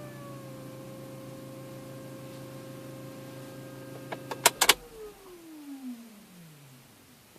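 Opel Astra H electro-hydraulic power steering pump whining steadily over a low hum, the howl of a faulty pump that new bearings did not cure. A few sharp clicks come about four and a half seconds in; the low hum stops and the whine falls steadily in pitch as the pump motor spins down.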